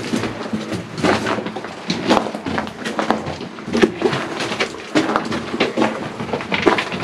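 Irregular scuffing and crunching footsteps of people moving hunched over loose rock and dirt, several a second.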